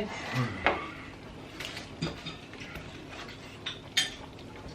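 Kitchen clatter: a few scattered light clinks and knocks of utensils against dishes and pots, the loudest about four seconds in.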